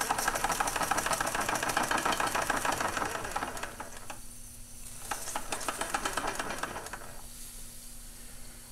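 Bing live-steam toy engine running fast, a rapid even clatter over steam hiss, in two runs with a break about four seconds in. The clatter is noisy, which the owner puts down to the drive on the governor.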